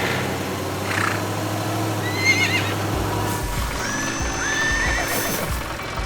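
Cartoon soundtrack: background music under a steady low hum, with a short wavering call a little past two seconds and a rising tone near the middle.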